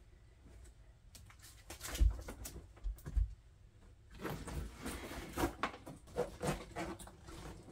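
A fabric suitcase being closed and handled: a few knocks and thumps about two to three seconds in, then several seconds of rapid rasping and rustling as it is zipped shut and lifted upright.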